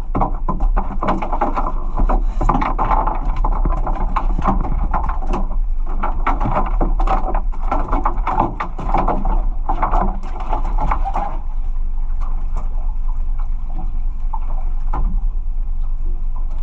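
A small boat at sea: a steady low hum under dense, irregular crackling and splashing, likely water and wind against the hull and the microphone. The crackling dies down about eleven seconds in, leaving the hum.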